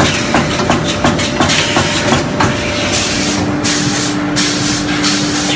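Paint roller production machinery running: about four sharp clicks a second over a steady tone, changing about three seconds in to a lower steady hum with repeated hisses.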